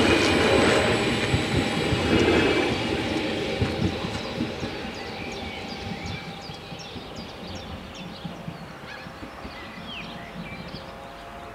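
Stadler KISS double-deck electric multiple unit passing over a level crossing, its wheels rumbling and clattering on the track. The sound is loud at first and fades away over several seconds as the train leaves.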